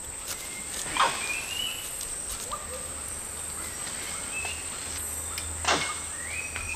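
Natural ambience: a steady high-pitched insect drone with short rising bird whistles now and then, and two sharp clicks, the first about a second in and the second near the end.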